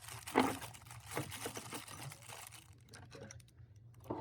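Tools and small items being handled and set into a tool box tray: a string of small clicks and knocks with a little crinkling, the sharpest knock about half a second in, thinning out after about three seconds.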